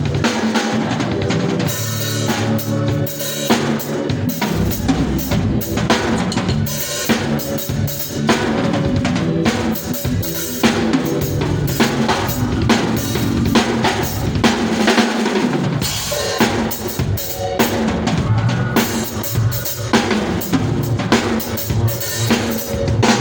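Drum kit being played continuously, with bass drum, snare and rim hits in quick succession.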